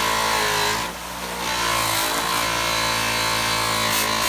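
Bench buffer motor running steadily while a metal pinball guide is pressed against its compound-loaded buffing wheel: a steady motor hum under the hiss of the wheel rubbing the metal, dipping briefly about a second in.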